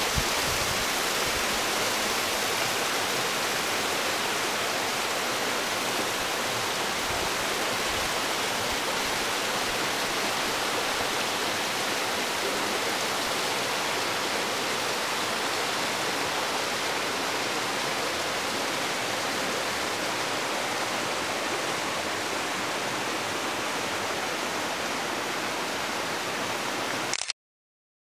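Steady rush of flowing water from a shallow rocky creek and waterfall, an even hiss that cuts off abruptly near the end.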